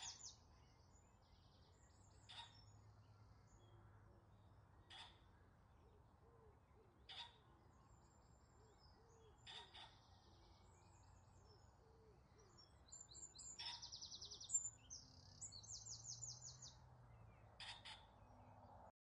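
Faint birdsong: high chirps and rapid trills from small birds, with a short sharp call every few seconds and soft low hooting calls beneath, over a faint low hum.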